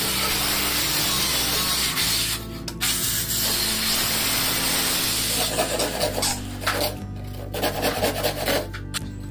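Hand saw cutting into the edge of 18 mm plywood, cutting a narrow slot for a shelf. The strokes run in long even stretches with a short break about two and a half seconds in, then come shorter and choppier from about halfway on.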